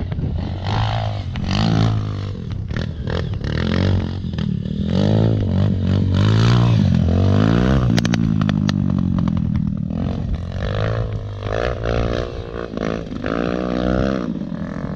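Enduro dirt bike engine revving hard and rolling off again and again, pitch climbing and dropping as the rider accelerates out of curves and over jumps. A short burst of clattering about eight seconds in.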